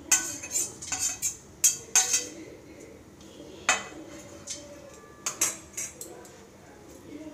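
A metal spoon scraping and clinking against a steel plate and a serving plate while chopped herbs and chillies are pushed off: a quick run of clinks and scrapes in the first two seconds or so, then a few scattered single clinks.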